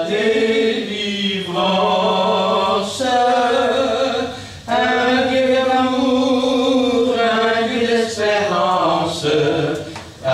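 A hymn sung slowly, each note drawn out for one to three seconds.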